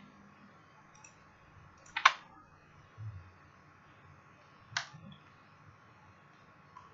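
Two sharp clicks from operating a computer, about three seconds apart, with a fainter click before them and a soft low thump between them.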